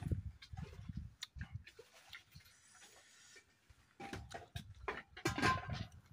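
Close eating sounds: chewing and mouth smacks with irregular small clicks and soft low thuds, and a louder burst of noise about five seconds in.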